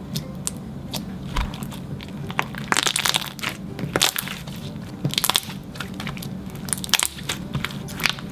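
Clear slime mixed with a store-bought slime being squished and poked by hand, with irregular sharp clicks and popping of trapped air bubbles, heaviest in clusters about three, five and seven seconds in.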